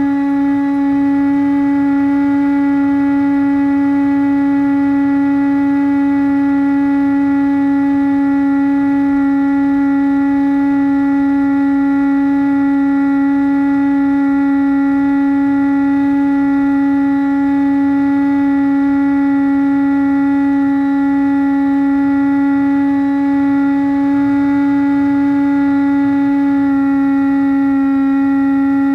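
Electric motor and propeller of a Bixler foam plane (Turnigy D2826-6 2200kV brushless outrunner spinning a 6x5 prop) running at steady cruise throttle, a loud, even buzzing drone picked up on board. Its pitch steps slightly near the end.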